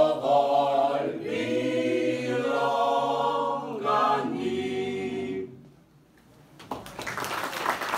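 Mixed a cappella group of men's and women's voices singing a song in Slovenian in harmony, closing on a held chord about five and a half seconds in. After a short pause, clapping starts near the end.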